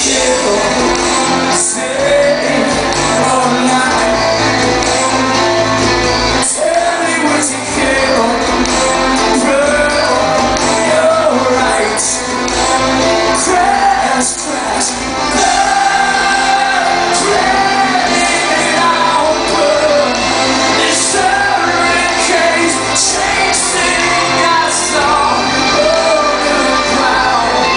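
Live rock band playing with a singer, loud and continuous, with shouts rising over the music.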